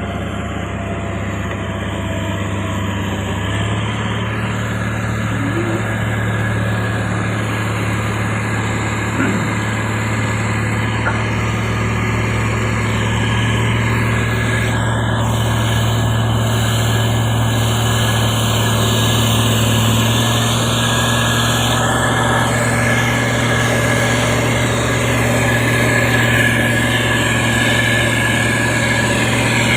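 Heavy road-construction machine's engine running steadily with a low hum, growing a little louder about four seconds in.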